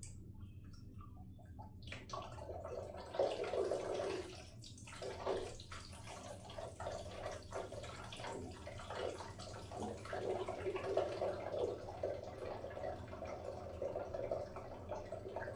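Water from the floor above running down through bathroom pipework: a few faint drips, then about two seconds in a continuous, uneven pouring and splashing that swells and fades.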